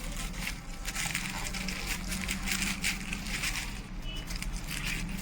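Freshly microwave-heated egg puff being cut open, its flaky puff-pastry crust crunching and crackling in many quick crackles.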